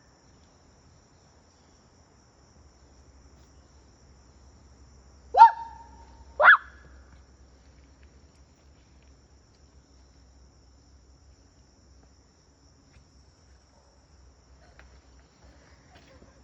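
Two loud human whoop calls about a second apart, roughly five seconds in, each sweeping up in pitch and then holding briefly, the second higher than the first. A steady high insect drone runs underneath, with a few faint ticks near the end.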